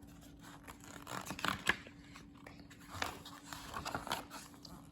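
Faint scattered rustles and clicks, several short bursts, densest about a second in and again around three to four seconds in.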